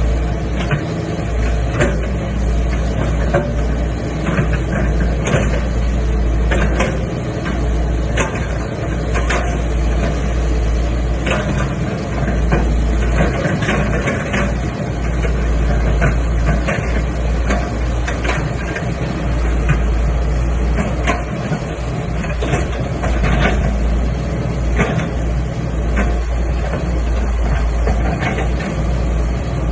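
Excavator's diesel engine running steadily with a heavy low rumble, with frequent short knocks and clanks from the machine as it digs.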